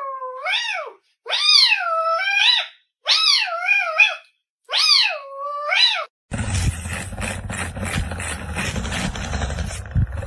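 A cat meowing four times in long, wavering meows of about a second each, with silence between them. After about six seconds this cuts off abruptly to a steady, noisy rumble.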